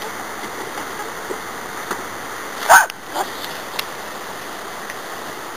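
A kea, the New Zealand mountain parrot, gives one short, loud, harsh call about halfway through, followed by a couple of fainter sounds, over a steady rushing noise.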